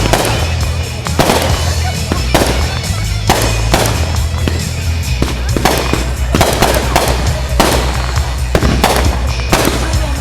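Fireworks going off, sharp bangs about once a second, over music with a steady heavy bass.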